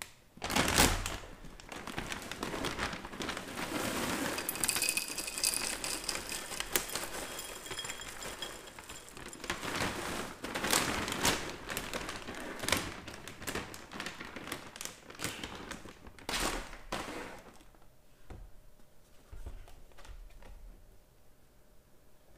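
Plastic cereal bag crinkling and rustling as it is opened and handled, and dry Oreo O's cereal rattling into a ceramic bowl as it is poured. It gets quieter for the last few seconds, leaving only scattered handling sounds.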